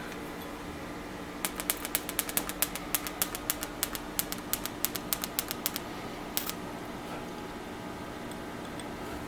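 A rapid run of light, sharp clicks, about seven a second for some four seconds, then one more click.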